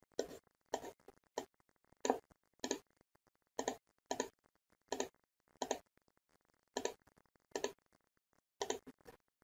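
Faint clicking of a computer mouse and keyboard during desktop work: about a dozen short, sharp clicks at uneven intervals, roughly one every half second to a second, several of them doubled.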